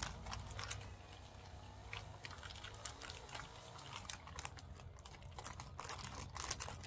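Plastic snack packaging crinkling and rustling as it is handled, in irregular bursts of crackles, loudest just after the start and again between about five and six and a half seconds in.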